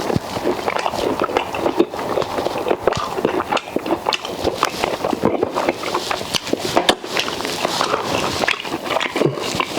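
Close-up eating sounds: a person chewing and smacking on fufu, okra soup and pork, with many small mouth clicks.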